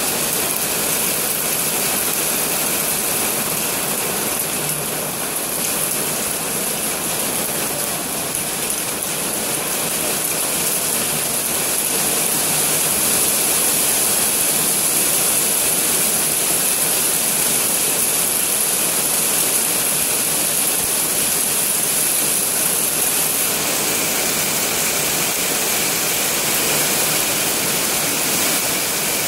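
Heavy rain pouring down steadily onto a flooded patio floor, a dense hiss of falling and splashing water that grows a little louder about halfway through.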